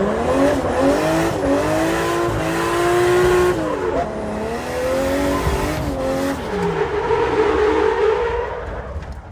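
Zhiguli drift car's engine revving up hard under acceleration, its pitch climbing, dropping sharply about four seconds in, climbing again and falling away after six seconds. Tyres squeal near the end.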